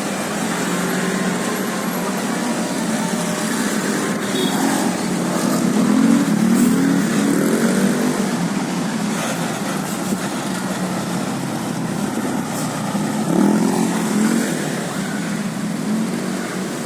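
Road traffic: vehicle engines running with a steady drone, and an engine note rising twice, about six seconds in and again about thirteen seconds in.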